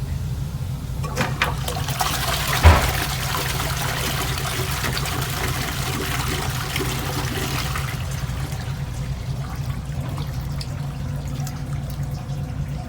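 Close-coupled toilet flushing: a few clicks and a sharp thump from the flush mechanism, then water rushing into the bowl for about six seconds before dying away. A steady low hum runs underneath.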